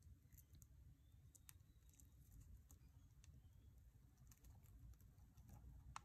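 Near silence: quiet room tone with faint scattered clicks and ticks, one a little sharper near the end.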